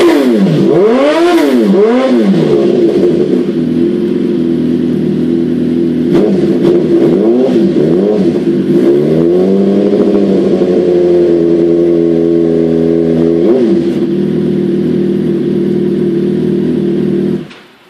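Suzuki GSX-R1000 K8 inline-four engine through an M4 GP stubby exhaust with the dB killer removed, heard from inside a car about 7 m away. It is revved repeatedly, the pitch rising and falling with each blip, then settles to idle with one more short blip near the end, and the sound cuts off suddenly just before the end.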